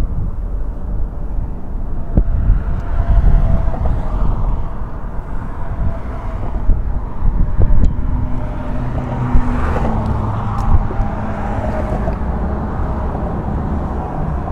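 Road traffic crossing the bridge: cars passing in a steady low rumble with engine and tyre hum that swells and fades.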